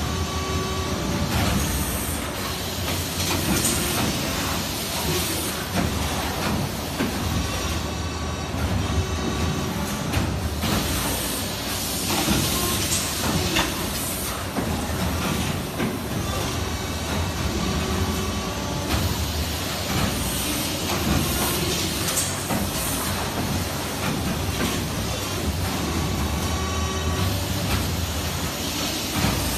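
Injection moulding machines running on a cup production line: a steady machine hum with hisses of air recurring every few seconds as the take-out robots cycle.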